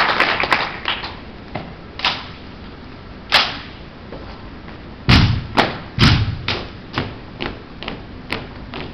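Rifle drill team working: applause dies away, then sharp knocks of rifle handling and two heavy thumps about five and six seconds in. Then a steady beat of marching steps on a hard floor follows, about two a second.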